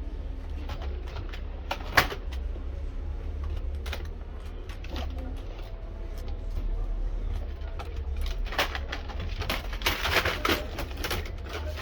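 Scattered small clicks and taps from handling tools and a laptop on a workbench, with one sharp click about two seconds in and a quicker run of clicks near the end, over a steady low hum.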